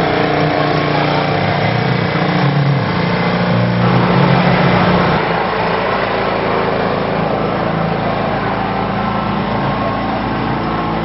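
A small engine running steadily, its low hum changing pitch about five seconds in.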